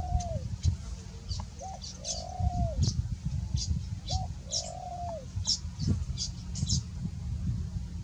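A dove cooing the same phrase three times, a short note followed by a longer arching one, over high thin chirps from small birds and a low rumble.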